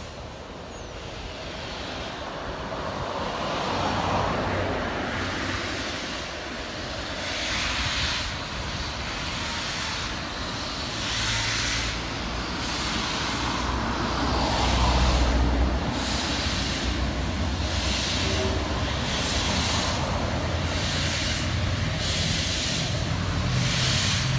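LMS Princess Royal class steam locomotive 6201 Princess Elizabeth working slowly, its exhaust chuffs several seconds apart at first and then coming quicker, about one a second near the end, with steam hissing and a low rumble. The chuffs grow louder as it gathers way.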